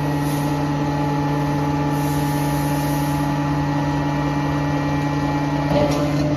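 Hydraulic power unit of a 160-ton scrap metal baler, electric motor and pump running with a steady, even hum. A brief rattle comes just before the end.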